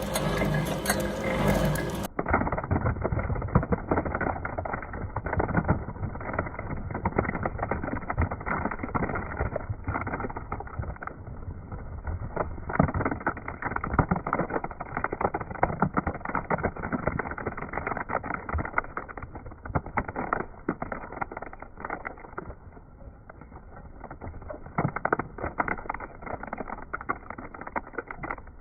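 A shredder running and chewing through Play-Doh: a dense, irregular crackling and rattling over a churning motor. From about two seconds in it sounds muffled and dull.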